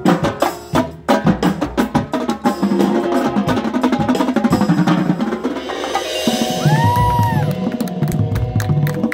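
Drum corps playing on the field: a marching drumline of snare, tenor and bass drums beats out fast rhythms under sustained pitched chords. A short rising-then-falling glide sounds about seven seconds in, and the bass drums come in heavier near the end.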